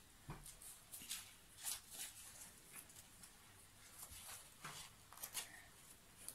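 Faint, irregular scratching strokes of a coloured pencil writing on paper.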